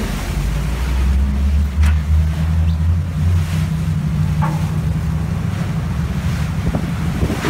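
Pilot boat's engines running with a steady low rumble, under wind and sea noise with wind buffeting the microphone. A couple of light knocks come through about two and four and a half seconds in.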